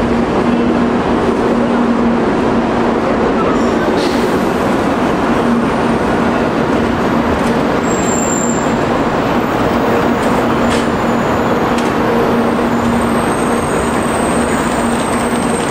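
700 series Shinkansen bullet train rolling slowly alongside the platform as it comes in to stop: a steady rumble of wheels and running gear with a constant low hum.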